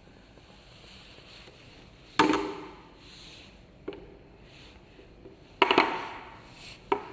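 A clear PET plastic fridge organizer dropped onto a hard floor, landing with a hollow plastic clatter twice, about three seconds apart, with a few lighter knocks as it is handled. The box survives the drops undamaged.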